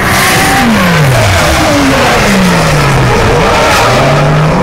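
Two drift cars' engines revving hard through a tandem run: the engine pitch falls twice and then climbs again near the end, over the noise of the cars and their tyres sliding.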